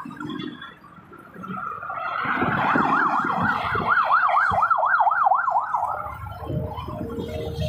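An emergency siren in a fast up-and-down yelp, about three sweeps a second, sounding for about three seconds in the middle. Beneath it is the steady rush of expressway traffic.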